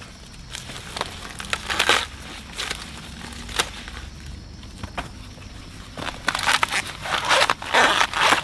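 Dry plant material rustling and crunching in scattered bursts, sparse at first and growing busy and close in the last couple of seconds.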